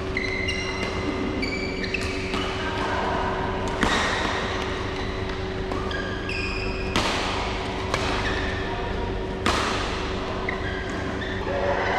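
Badminton rally: sharp racket-on-shuttlecock hits, the loudest about four, seven and nine and a half seconds in, with short high squeaks of court shoes between them. A steady hum runs underneath.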